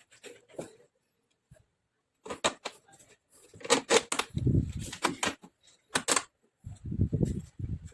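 Intermittent clicks, rattles and dull knocks of metal and plastic parts being handled and fitted inside a MIG welder during reassembly.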